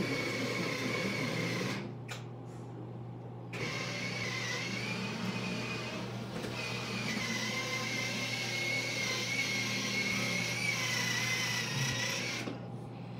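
A small motor running with a steady, slightly wavering high-pitched whine over a hiss and a low hum, dropping away for a second or two about two seconds in and again near the end.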